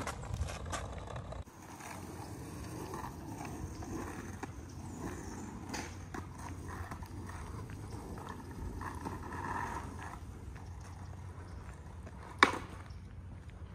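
Skateboard wheels rolling on an asphalt street with a low rumble and light clicks, then one sharp clack about 12 seconds in as the board hits the pavement.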